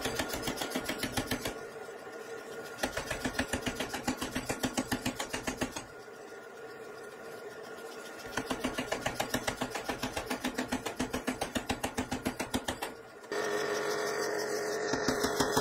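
Power hammer striking hot axe steel through a handled top tool in a fast, even rhythm of about six blows a second. There are two runs of heavier blows, with lighter strokes between them.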